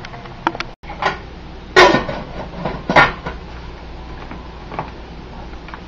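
Kitchen clatter of cookware being handled: two sharp knocks about two and three seconds in, with lighter clicks and taps between.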